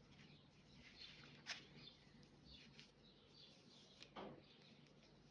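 Near silence, with faint rustling of cotton macramé cord being pulled and knotted by hand: a soft click about a second and a half in and a brief sliding swish of cord a little after four seconds.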